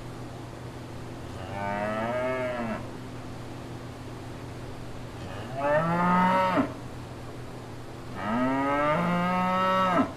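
Cow mooing three times, each moo lasting about one to two seconds, the last the longest.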